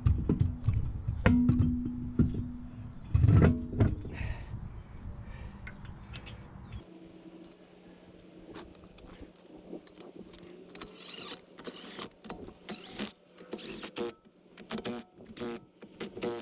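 Metal clinks, knocks and rattles of a wheel and its hardware being handled and fitted back on a car. It opens with heavy low knocks over a steady hum for a few seconds, then turns to quieter, sharp clicks and clinks.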